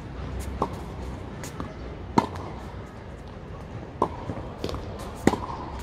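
Tennis rally: sharp pops of a tennis ball off racket strings and bouncing on a hard court, one every second or so, with the loudest hits about three seconds apart.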